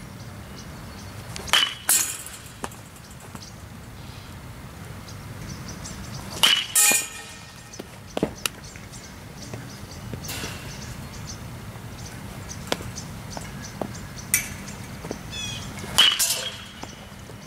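Metal baseball bat hitting pitched balls: three sharp pings with a brief ringing tone, about a second and a half in, at six and a half seconds and near the end, each followed within half a second by a second impact.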